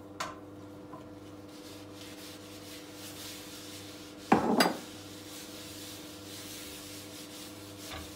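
Kitchenware handled at a gas stove: a small click near the start, then a short loud clatter of something knocked against the stove or pan about four seconds in, over a faint steady hum.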